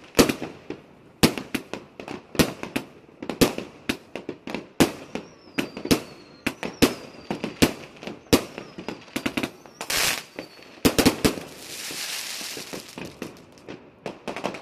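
Rubro firework cake, a multi-shot battery, firing shot after shot: sharp bangs of bursting shells, one to two a second. A faint falling whistle runs through the middle, and a spell of crackling hiss comes near the end.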